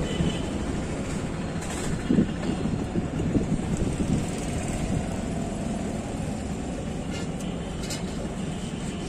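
Steady roadside traffic noise, with a few faint light clicks.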